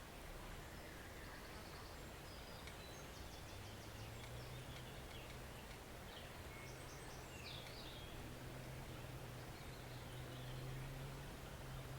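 A woodland stream flowing as a faint, steady wash, with small birds chirping here and there. A low, steady drone comes in about three and a half seconds in and holds.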